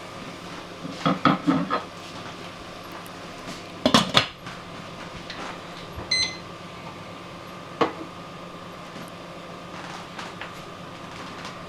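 Kitchen dishes and utensils being handled: clattering knocks about a second in, a few loud clanks about four seconds in, a short ringing ping and a click later, over a steady hum.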